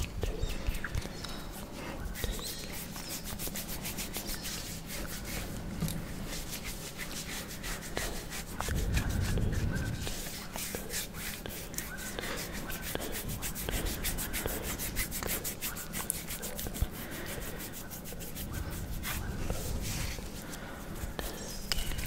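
Hands rubbing and scratching bare skin close to a microphone: a continuous run of soft rubbing with fine crackly scratches, growing louder and deeper for about a second and a half around nine seconds in.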